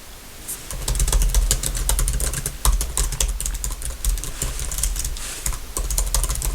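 Fast, irregular typing on a computer keyboard, starting about half a second in, with a low rumble under the keystrokes.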